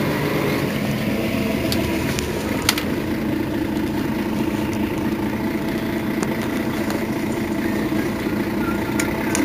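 Mercedes-Benz Citaro city bus engine running steadily with an even hum, neither revving nor falling away. There is a single sharp click nearly three seconds in.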